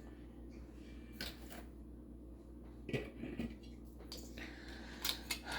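A few faint clicks and light knocks of kitchen utensils and containers being handled while batter ingredients are measured, over a low steady hum.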